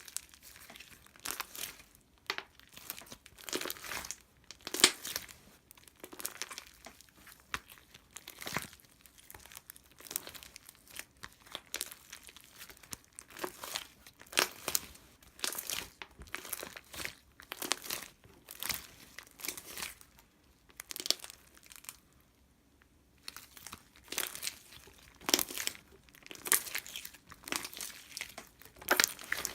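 Irregular crinkling and rustling from something being handled, in many short sharp crinkles, with a brief pause a little past the middle.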